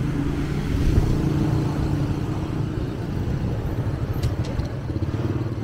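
A car driving slowly past close by: a low engine hum with tyre noise, loudest about a second in. A few faint ticks come a little past the middle.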